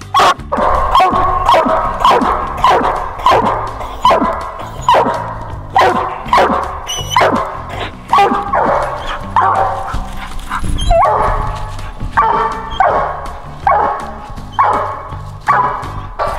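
Coonhound barking treed: a steady run of short, loud chop barks about every 0.7 seconds, each dropping in pitch, the dog baying up the trunk at a raccoon it has treed.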